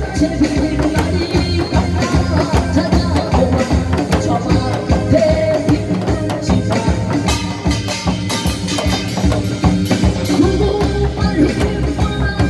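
Upbeat song for a pumba stage performance, played loud with a steady drum beat under a melody line.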